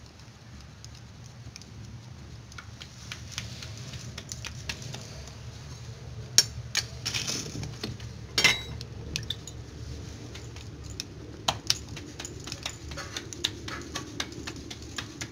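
Wood fire in a chulha crackling and popping under a griddle, with irregular sharp snaps over a steady low rumble of flame. A few louder knocks and clinks come between about six and nine seconds in.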